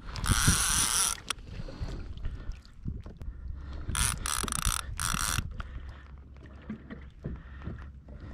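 Fishing reel's drag buzzing in two short runs as a hooked small yellowfin tuna pulls line, the first about a fraction of a second in and the second, in choppy pieces, about four seconds in. A low steady rumble of wind and water runs under it.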